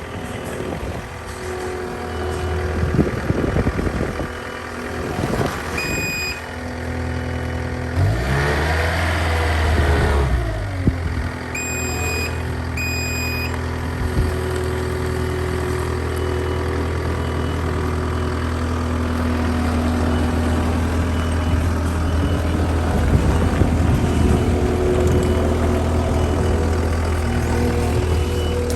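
Takeuchi TL12 skid steer loader's diesel engine running steadily while the machine is operated, its revs rising and falling about a third of the way in. A few short electronic beeps sound near the middle, and faint regular beeping runs through the second half.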